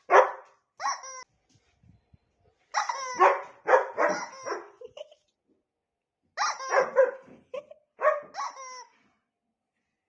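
German shepherd barking in several short bursts with pauses between, agitated by the sound of her toy.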